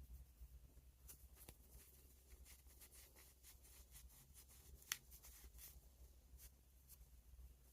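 Faint, scratchy rubbing strokes of hand work on a pocket knife, over a low hum, with one sharp click about five seconds in.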